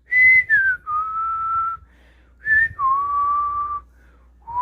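A person whistling a slow, serene tune of held notes with short slides between them, in three phrases that step down in pitch, imitating gentle nature music.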